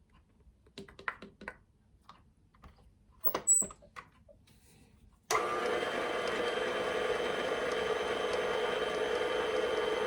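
A few light clicks and knocks, then about halfway through a food processor switches on and runs steadily, mixing flour into a stiff cookie dough.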